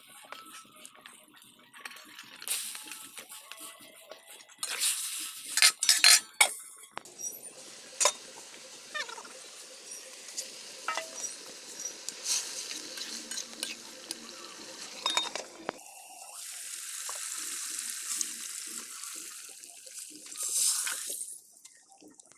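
Metal cooking utensils clinking, knocking and scraping against a pot while food is stirred, with the loudest knocks about a quarter of the way in. A steady hiss runs for several seconds near the end.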